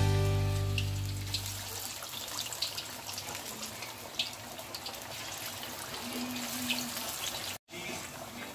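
Besan-battered rohu fish sizzling in hot oil in a wok, a steady fizzing hiss with scattered small crackles and pops.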